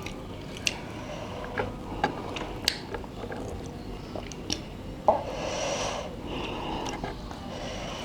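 A person eating spicy instant noodles close to the microphone: chewing with sharp, wet mouth clicks, and a longer breathy sound about five seconds in.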